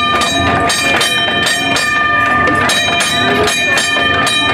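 Steel wheels of a horse-drawn streetcar squealing on curved rail, a steady high ringing squeal of several pitches at once, over the horse's hooves clopping at an even pace.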